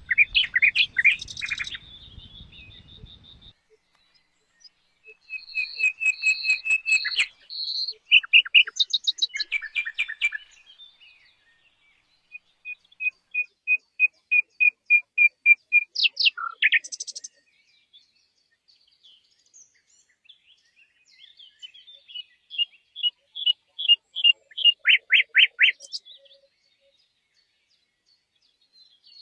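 Songbird singing in separate varied phrases: high whistled notes, quick trills and a run of about a dozen evenly spaced notes, with pauses of a few seconds between phrases.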